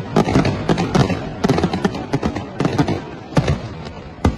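Fireworks going off: many sharp cracks and bangs in quick, irregular succession, several a second.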